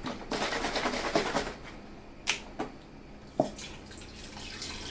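Beef stock being poured into a pressure cooker pot over chunks of meat, a liquid pouring and splashing sound. There are a few short, sharp knocks in the middle.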